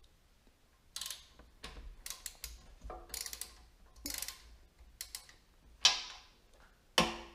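3/8-inch drive socket ratchet clicking in short runs as it works the oil drain plug loose on the engine's crankcase, with two louder, sharper clacks near the end.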